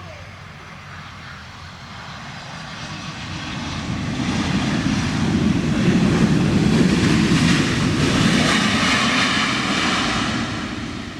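Airbus A320 jet engines passing close by on landing approach, the steady rumble and fan whine swelling over several seconds, loudest in the middle, then fading as the airliner goes past.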